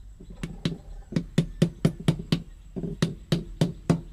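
Rapid light taps of a soft-faced mallet driving a new oil seal into a Mahindra Novo 655 DI tractor's cast-iron front wheel hub housing. The taps come about four a second, with a short pause a little past halfway.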